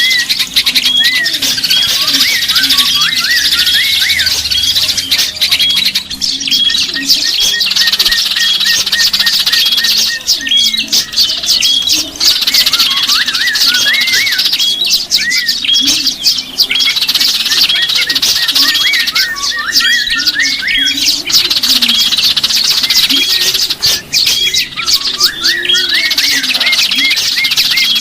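Many small birds chirping and calling together in a dense, unbroken chorus of quick high notes, with short hooked calls repeated over and over; a low wavering call runs underneath. It is a pikat recording, used to lure small birds.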